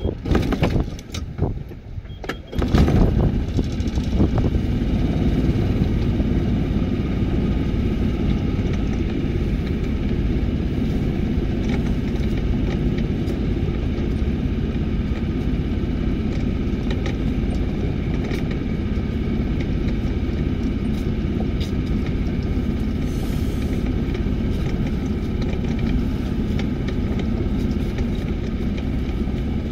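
A few knocks and rattles, then a motor vehicle engine starts about three seconds in and runs steadily.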